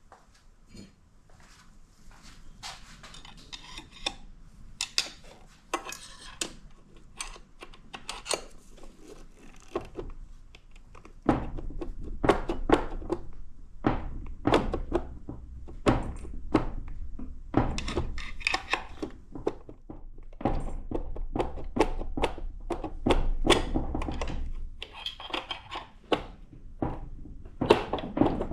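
Metal parts of a Ford 8F35/8F40 automatic transmission clinking and knocking as it is taken apart by hand, with many separate sharp knocks that grow heavier and more frequent about a third of the way in.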